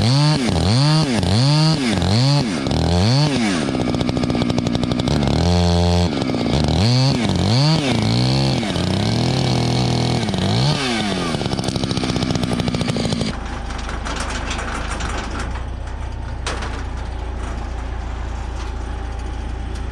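Chainsaw engine revved up and down over and over in quick throttle blips, about one and a half a second. Near the two-thirds mark it holds its speed briefly, then drops to a steady low drone.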